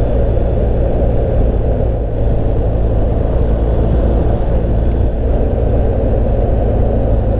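Steady wind rush and low drone of a BMW GS Adventure motorcycle cruising at about 50 mph, with wind on the helmet-mounted microphone. The sound stays even throughout.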